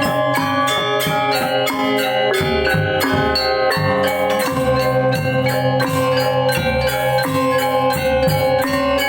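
Balinese gamelan ensemble playing a pelegongan piece: bronze metallophones and gongs struck in rapid, dense patterns over steady ringing low notes.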